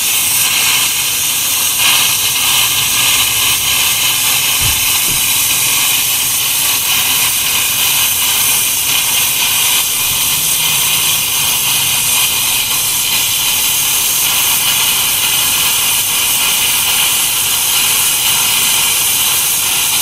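Air plasma cutter cutting through 8 mm steel plate, its compressed-air plasma arc making a steady, loud hiss.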